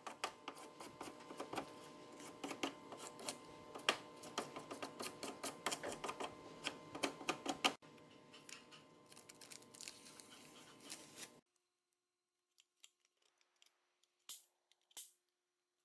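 Rapid scratchy rubbing strokes over masking tape laid on a truck's bowtie grille emblem, tracing its outline, over a steady hum. The sound cuts off abruptly about eleven seconds in. After that come only a few scattered light taps and clicks from paper and tools being handled.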